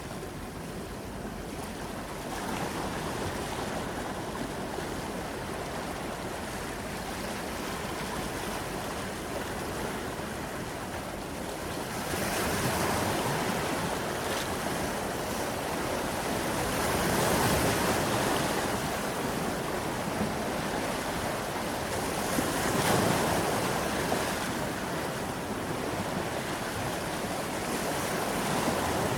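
Sea waves washing onto the shore, a continuous rushing wash that swells several times, most strongly about halfway through and again about two-thirds of the way through.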